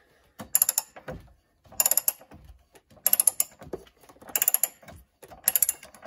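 Socket ratchet clicking in five short runs, about one every 1.2 seconds. Each run is the pawl ratcheting as the copper-pipe-lengthened handle swings back between pulls, turning the water heater's seized anode rod loose.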